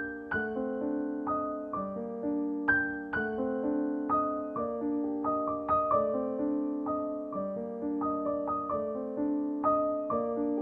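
Background piano music: a gentle melody of single notes and chords, each struck and left to ring out, a new note about every half second.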